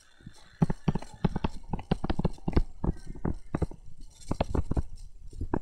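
A pen stylus tapping and scraping on a tablet's writing surface while handwriting words, an irregular run of short, sharp taps.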